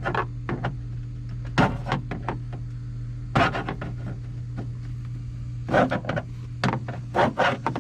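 Irregular clicks, knocks and rattles of plastic dash trim clips being pried loose with a screwdriver and handled, in several clusters, over a steady low hum.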